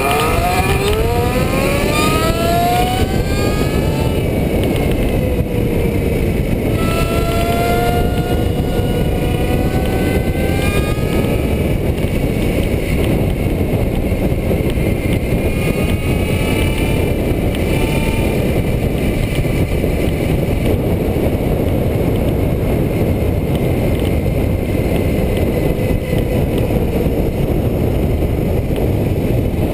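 Scratch-built 28 hp electric bicycle's motor whining, rising in pitch as it accelerates, three times in the first twenty seconds, over a heavy rush of wind on the microphone at speed.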